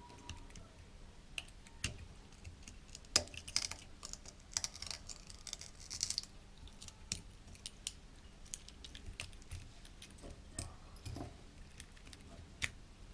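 Quiet, scattered clicks and scrapes of a sharp tool prying at the glued-down front screen of a GoPro Hero 4 Silver, with a stretch of steadier scraping around four to six seconds in. The screen is held fast by adhesive.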